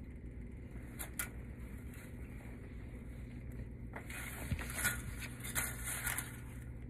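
A low steady hum, a single click about a second in, then scratchy rustling of clothing and phone handling as the person shifts position during the second half.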